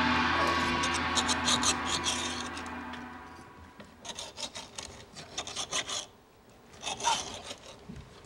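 A table knife sawing through steak on a cast-iron serving plate, the blade scraping the iron in quick back-and-forth strokes that come in clusters, while a music sting fades out over the first few seconds.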